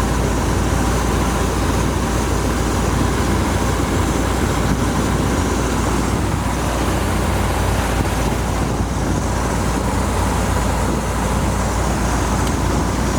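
1969 Chevrolet Corvette's 350 V8 idling steadily.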